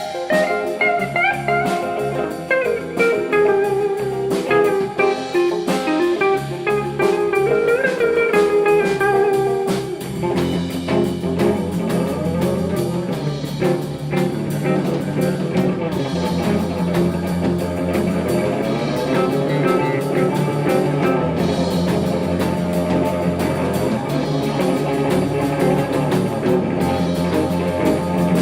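Instrumental blues-style music led by guitar, with drums; the bass end fills out about ten seconds in.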